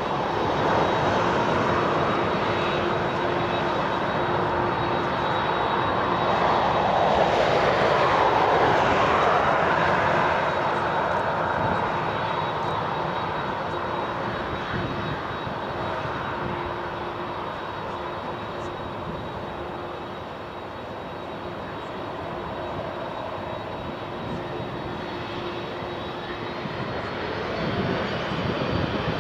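Boeing 747-400's four jet engines at takeoff thrust as the airliner lifts off and climbs away. The roar grows to its loudest about eight seconds in, then slowly fades as the aircraft recedes.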